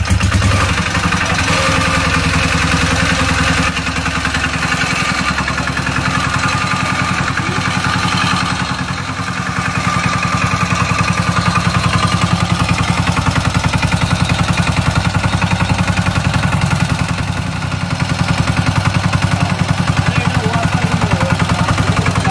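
Freshly reassembled CD Z170 single-cylinder diesel engine firing up after hand-cranking and settling into a steady run with a fast, even firing beat.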